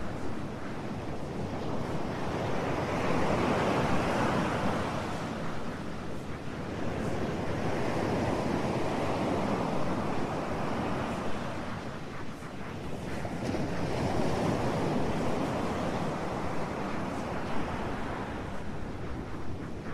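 Recorded ocean waves breaking and washing in, a steady rush that swells and falls back about every five to six seconds.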